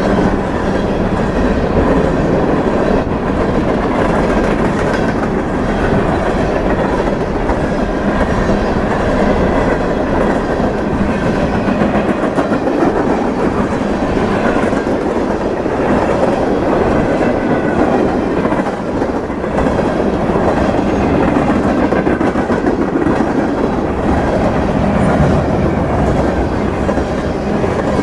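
Mixed freight train of box cars, hoppers and tank cars rolling past at close range, the steel wheels running steadily over the rails.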